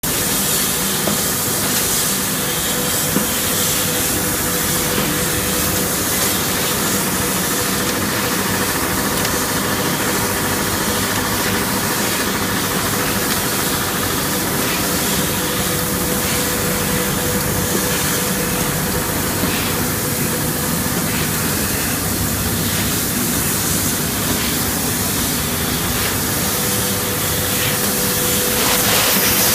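Grinding machine for motorcycle disc brake pads running: a steady hissing grind over a constant hum, growing louder and hissier near the end.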